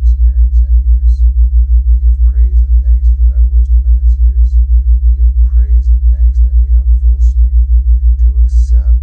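Theta-wave entrainment tone: a loud, low hum pulsing evenly about four times a second, with a faint voice murmuring underneath.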